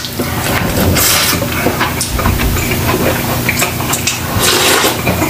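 Close-miked eating sounds: wet chewing with many small clicks and smacks, and loud slurping sips of soup from a glass bowl, with hissing slurps about a second in and again near the end.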